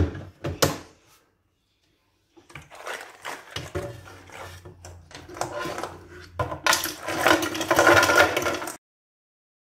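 Ice cubes clattering into the empty plastic pitcher of a Ninja blender: many rapid, irregular knocks, louder over the last couple of seconds and cut off suddenly. A couple of sharp clicks near the start as the pitcher is handled on the base.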